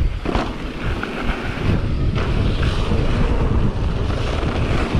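Wind buffeting the microphone: a loud, steady rumble and rush.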